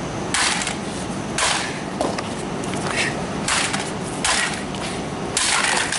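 Sledgehammer blows on a box lying on asphalt: about five separate hits, spread unevenly through the few seconds.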